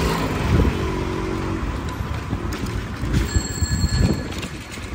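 Busy street traffic noise with vehicles passing, and a bell ringing for about a second a little past the middle.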